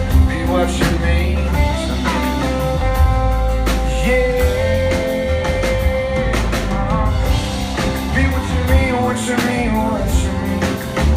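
Live country band playing a song with singing, drums and a steady bass line; a long note is held about the middle, then the singing moves on.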